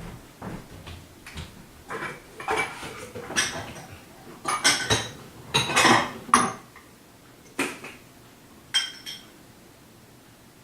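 Dishes clattering as a bowl is fetched: a string of sharp clinks and knocks, the loudest ones bunched in the middle.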